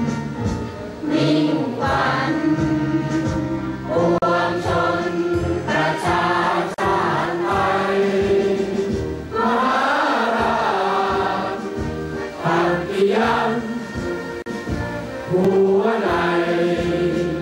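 Music with a choir of many voices singing together over an accompaniment.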